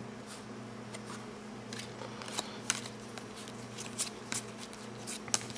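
Basketball trading cards being flipped through by hand: cardboard cards slid off a stack and tucked behind it, giving irregular light clicks and rustles, more of them in the second half, over a low steady hum.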